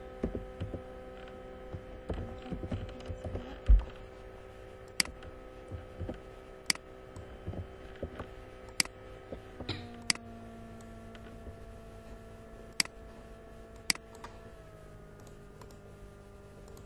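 Computer keyboard keys and mouse buttons clicking: scattered single sharp clicks a second or two apart, with a dull thump about four seconds in. Under them runs a steady hum that drops in pitch about ten seconds in.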